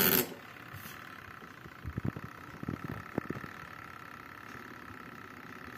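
Artel TG-100 FP semi-automatic washing machine running with a faint steady motor whine, just after its wash timer dial is turned, with a few low thuds about two and three seconds in. A short burst of noise comes right at the start.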